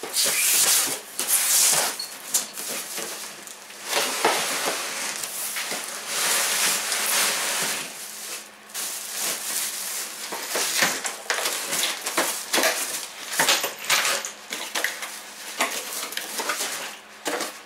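Cardboard box being opened and a plastic-wrapped roof vent fan slid out of it: an irregular string of cardboard rustling and scraping, plastic sheeting crinkling, and sharp knocks as the box and flaps are handled.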